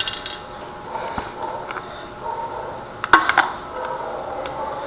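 Hard plastic action-camera chin mount and its strap being handled and pressed against a motorcycle helmet shell: scattered light clicks and taps, with a short cluster of louder clicks about three seconds in.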